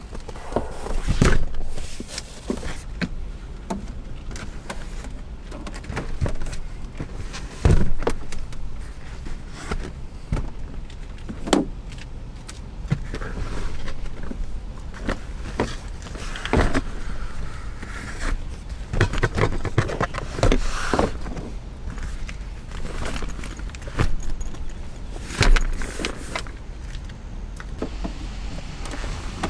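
Scattered knocks, clicks and rustling of things being handled, over a faint steady background.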